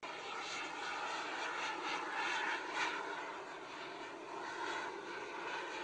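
Twin micro turbine jet engines of a radio-controlled F-14 Tomcat model running, a steady rushing jet noise.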